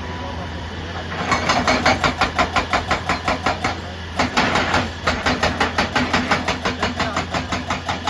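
An engine running with a fast, even clatter of about six or seven beats a second over a steady low hum.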